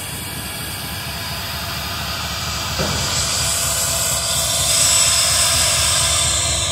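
Norfolk Southern diesel locomotive running as it moves a cut of autorack cars past, a low engine rumble under a steady hiss. The sound grows louder from about halfway through as the locomotive draws closer.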